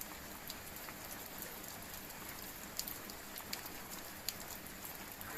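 Steady rain falling, with scattered sharp drop impacts.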